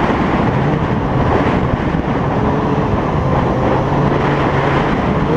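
Snowmobile engine running steadily while the sled rides over snow, with wind rushing over the microphone.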